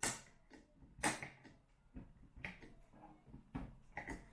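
Sharp clicks and scrapes of a freezer fan's plastic hub and metal retaining spring being handled on the fan motor's spindle, two louder clicks about a second apart at the start, then fainter ticks.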